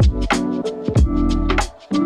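Electronic background music with a steady drum beat and sustained bass notes. It drops out briefly near the end.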